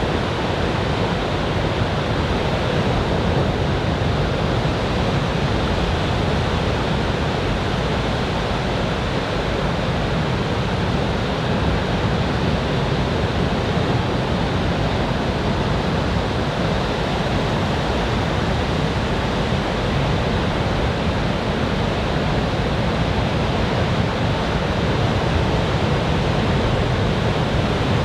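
Steady rush of surf breaking on a beach, a dense even noise that holds level throughout without distinct wave-by-wave surges. The waves are a typhoon swell, chest-to-shoulder high.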